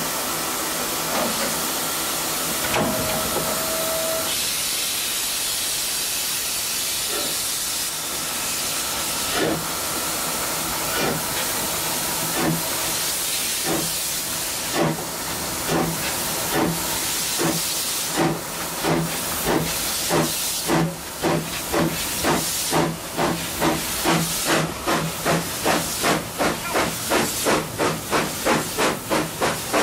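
ÖBB class 298 narrow-gauge steam locomotive getting under way: steam hissing at first, with a short whistle note about three seconds in, then exhaust chuffs starting slowly and quickening steadily to about two a second as the engine picks up speed.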